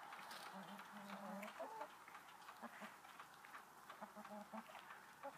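Backyard hens making soft, drawn-out low calls: a couple about a second in and a few shorter ones about four seconds in.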